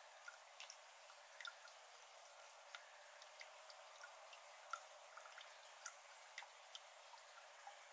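Water drops falling into the shallow water of a flooded iris garden: faint, irregular plinks, a few a second, over a soft hiss.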